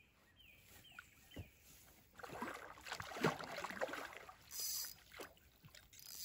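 A hooked bowfin thrashing and splashing at the pond's surface for about two seconds midway, as it is played toward a landing net.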